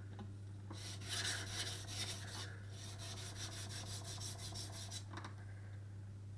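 Chef knife edge being ground back and forth on a wet, coarse 800-grit JNS waterstone while setting the initial bevel: a rapid, rhythmic rasping scrape that stops about five seconds in as the knife is lifted off the stone.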